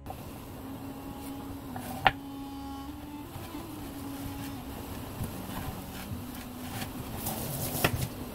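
Knife cutting asparagus spears on a wooden cutting board: one sharp knock about two seconds in and a cluster of knocks near the end, over a steady low hum.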